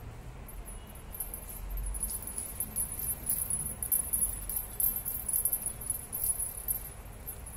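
Small metal jingle bell on a cat wand toy jingling in quick, irregular shakes as the toy is jiggled on its string, starting about a second in.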